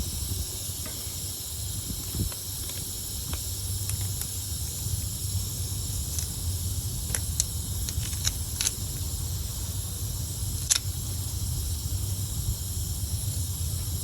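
Small scattered clicks and taps of a rubber tire-plug strip being worked through the eye of a plug insertion tool with needle-nose pliers, a little thicker around eight to nine seconds in and with one sharper click near eleven seconds. Under them runs a steady high hiss with a low rumble.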